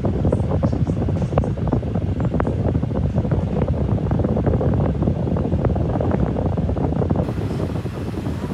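A steady low rush of moving air buffeting the microphone, with many small clicks and crackles throughout from hands working on a laptop's keyboard deck.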